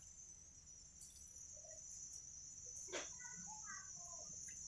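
Faint, steady high-pitched trilling of insects, with a single sharp click about three seconds in.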